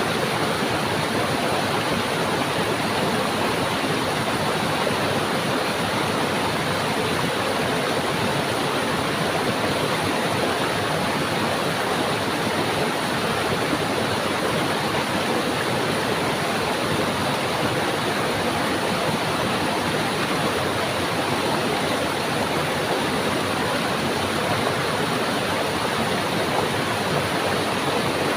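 Stream water rushing and burbling over rocks, a steady unbroken flow.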